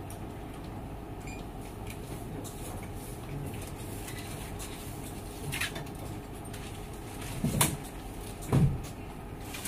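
Steady low hum, broken by a few dull thumps: a small one about five and a half seconds in, then two louder ones about seven and a half and eight and a half seconds in.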